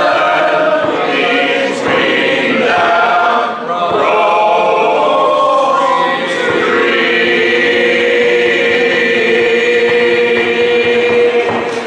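Three voices, one man and two women, singing unaccompanied in harmony, closing the song on a long held final chord from about seven seconds in.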